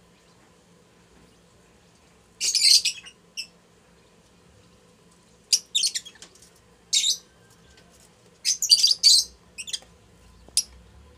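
Lutino Fischer's lovebirds giving short, shrill, high-pitched chirps in brief clusters, about six bursts spread over the stretch, the loudest about two and a half seconds in and again near nine seconds.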